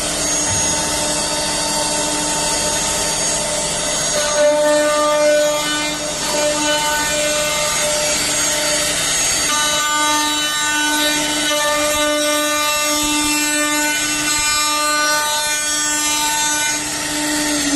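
Dual-station drilling and milling machine cutting wooden lamp bases: the spindle motors run with a steady whine over the hiss of the cutters in the wood. The pattern of the whine shifts about 4 seconds and again about 10 seconds in.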